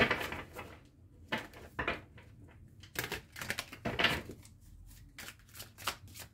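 Tarot cards being shuffled by hand and handled on a table: irregular papery snaps and taps, the loudest right at the start, with a quick run of them near the end.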